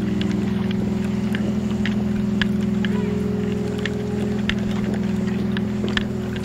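Ambient background music: low, held synth drone chords that change about three seconds in and again near the end, with faint lo-fi crackle clicks on top.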